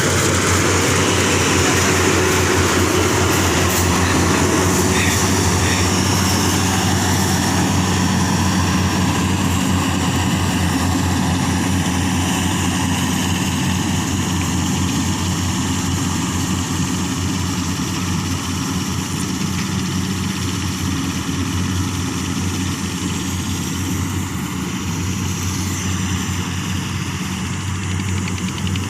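Combine harvester running steadily: a heavy diesel engine hum under a broad mechanical rush, growing slightly quieter toward the end.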